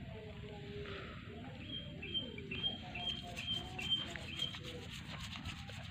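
A bird chirping a short high note over and over, about twice a second, starting about two seconds in, over faint rubbing and scraping.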